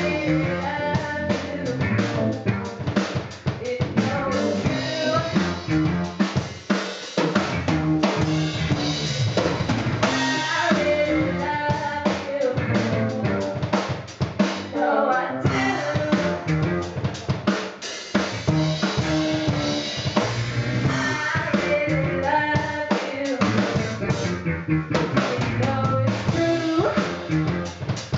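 A live soul band playing: a drum kit keeps a steady groove with kick and snare, under keyboard, guitar and a woman's melodic vocal line. The band drops back briefly about 7 seconds in and again about halfway through.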